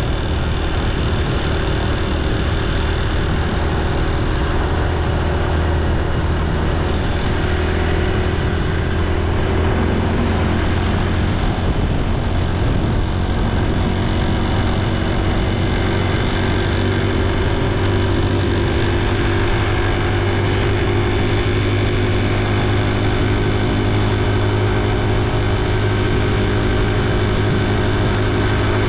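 Honda Super Cub C125's single-cylinder four-stroke engine and exhaust running while riding, over steady wind and road noise. The engine note climbs gradually over the second half.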